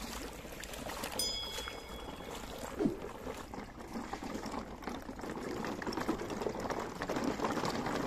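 Water of a shallow stream trickling and splashing around plastic toy trucks standing in it, growing louder in the second half. A short high tone sounds about a second in.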